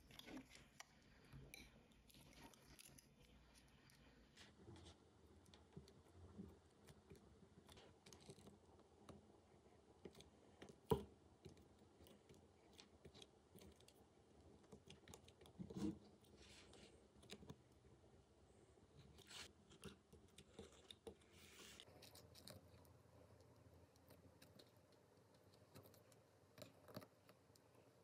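Near silence, with faint small clicks, taps and rustles from hands working foil tape and a plastic handle. One sharp click stands out about a third of the way in, and a smaller knock a little past halfway.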